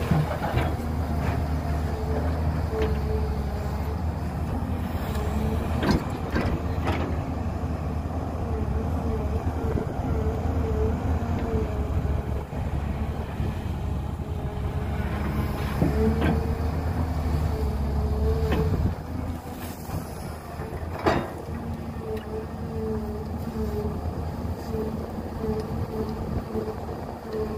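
Excavator's diesel engine running steadily with a wavering higher tone over it and several sharp clanks; the engine note drops off about two-thirds of the way through.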